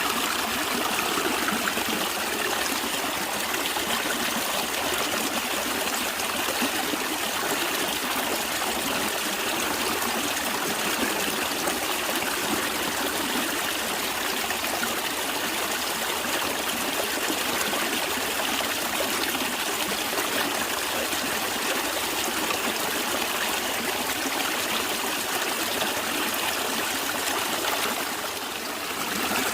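Natural stream flowing, a steady rush and trickle of running water that dips slightly for a moment near the end.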